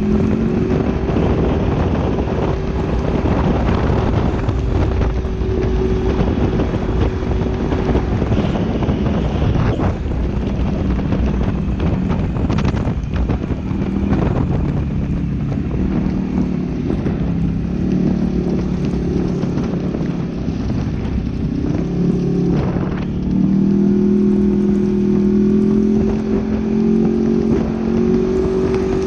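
Polaris RZR 900 XP side-by-side's parallel-twin engine running under way, its pitch dropping about halfway through and climbing again near the end, with wind rumbling on the microphone.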